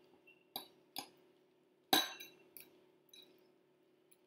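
Metal fork clinking against a ceramic bowl while stirring a wet mushroom and egg stuffing: about five separate clinks, the loudest about two seconds in.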